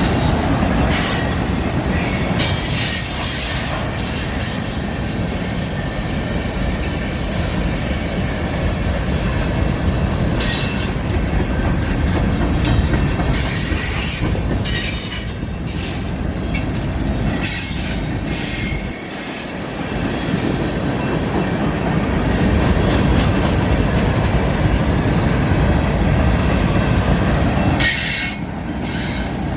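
Freight cars of a mixed freight train rolling past: a steady rumble of steel wheels on rail with clanks and clicks at the rail joints. A thin, high wheel squeal sounds for a few seconds early in the passage.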